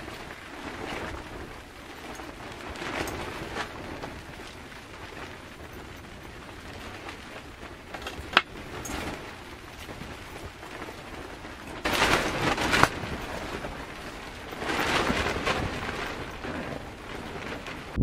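Rain pattering on a tarp shelter in gusty wind, the noise swelling and falling, with two louder surges about twelve and fifteen seconds in. A single sharp click about eight seconds in.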